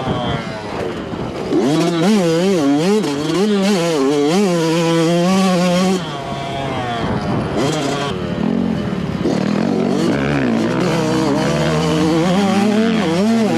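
Yamaha YZ125 single-cylinder two-stroke dirt bike with an FMF slip-on silencer, ridden hard, its exhaust note rising and falling with the throttle. It drops back about six seconds in, then climbs again.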